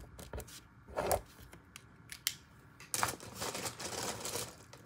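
Pen writing on lined notebook paper: short scratchy strokes and taps, with a louder knock about a second in. About three seconds in comes a longer rustle of the paper being handled.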